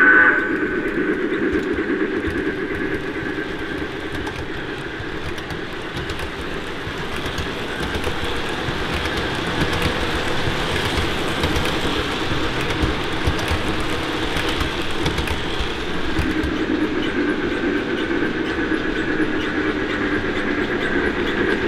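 O gauge model steam locomotive running along the track: a steady rumble of wheels on the rails with clickety-clack from the rail joints.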